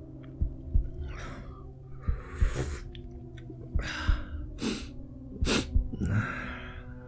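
A man's dry coughing and harsh gasping breaths, about six bursts, over a heartbeat sound effect throbbing in pairs and a steady low drone.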